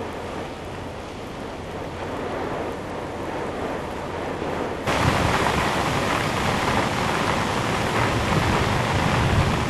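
Hurricane wind and heavy rain, a steady rush of noise. About halfway through it abruptly gets louder and fuller, with more low rumble.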